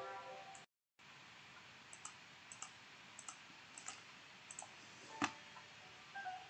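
A sustained musical chord dies away and cuts off, then faint hiss with a scatter of soft clicks, mostly in close pairs, and one louder click about five seconds in.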